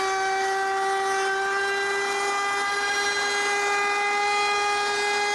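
Table-mounted router with a 3/8-inch roundover bit running at speed with a steady high whine while the edge of an oak board is fed past the bit.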